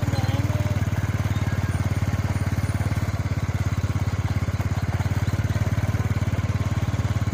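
Motorcycle engine running steadily while riding, heard from on the bike, with an even low pulsing.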